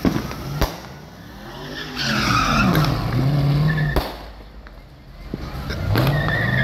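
A sports car's engine revving up and down in two surges while its tyres squeal as it spins in place doing donuts. Sharp bangs from fireworks go off at the start and again about four seconds in.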